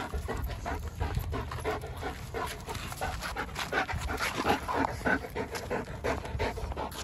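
German Shepherd dog panting hard in quick, rhythmic breaths while tugging at a ball-on-a-rope toy.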